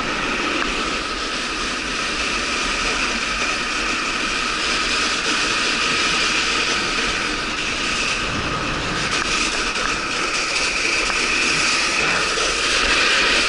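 Steady rushing noise of snowkiting: wind on the microphone mixed with the scrape of sliding over icy spring slush, a little louder near the end.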